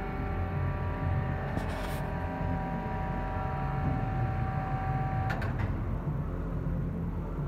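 Goodway GS-280 LMY CNC lathe running: a low hum with a steady high whine that cuts off about five seconds in, with a couple of sharp clicks as it stops and a brief hiss a little earlier.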